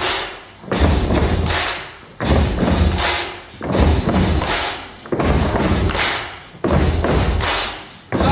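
Deep, heavy drum hits of a slow dance-music beat, six in a row about one and a half seconds apart, each dying away before the next.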